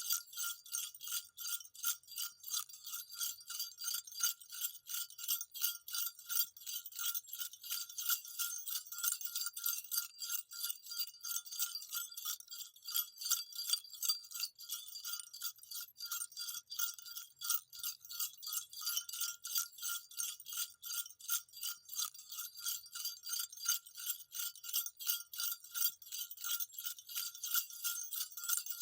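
Small jingle bells shaken continuously in a quick, even rhythm, with a steady ringing tone beneath the rapid jingles.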